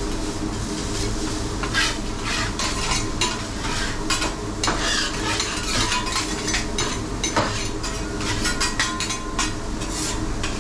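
Shrimp sizzling on a hot steel teppanyaki griddle while metal spatulas scrape and clack against the plate, many quick taps and scrapes, over a steady low hum.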